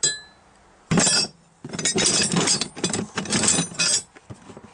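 Metal hand tools clinking and clattering in a tool chest as they are handled and rummaged through: a single ringing clink at the start, a loud clatter about a second in, then a couple of seconds of jumbled rattling that stops shortly before the end.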